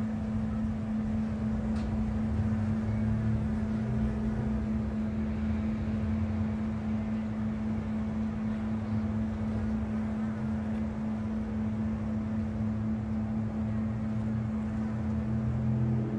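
Honey bee swarm buzzing: a steady, even hum from thousands of wings, with a low rumble underneath.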